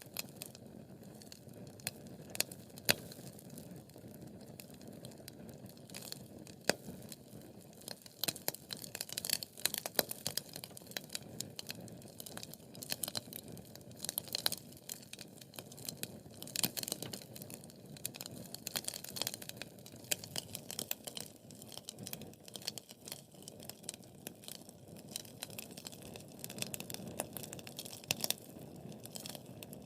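Wood fire burning in a fireplace, crackling and popping: a steady low hiss with many sharp irregular pops.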